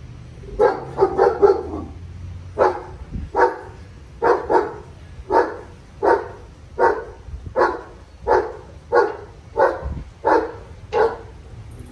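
Dog barking repeatedly, a quick run of barks near the start, then steady single barks about one or two a second.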